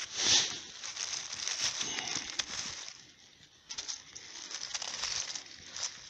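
Dry fallen leaves and forest litter rustling and crackling as a hand moves through them. Loudest just after the start, with a short lull about halfway through before more crackles.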